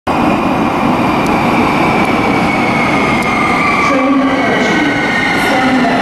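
A Gautrain electric train, a Bombardier Electrostar, running into an underground station platform. It makes a steady loud rumble, with high whining tones that slowly fall in pitch as it slows.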